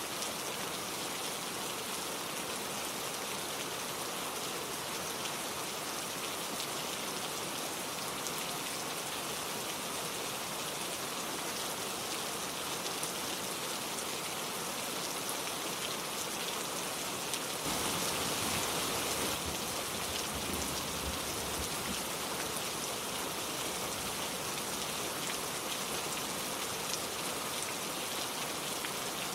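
Steady gentle rain falling and pattering on surfaces, with no thunder. It swells briefly a little over halfway through, then settles back.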